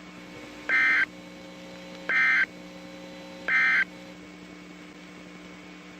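NOAA Weather Radio Emergency Alert System end-of-message signal: three short bursts of screeching digital data tones, about a second and a half apart, over a steady receiver hum. They mark the end of the alert broadcast.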